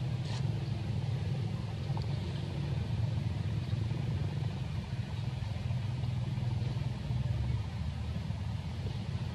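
A steady low rumble with a faint hiss above it.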